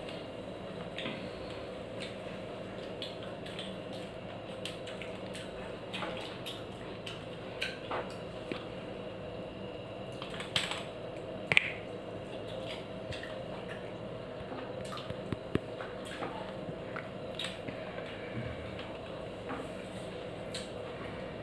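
Eating by hand from a stainless steel plate: soft, wet mixing and chewing sounds with scattered light clicks and clinks of fingers and small bowls on the steel, the loudest a sharp clink about halfway through. A steady faint hum runs underneath.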